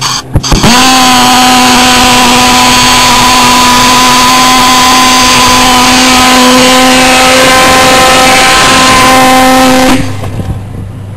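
Model pulsejet engine lighting with a few sharp pops, then running with a steady, very loud buzzing drone for about nine seconds before cutting out suddenly.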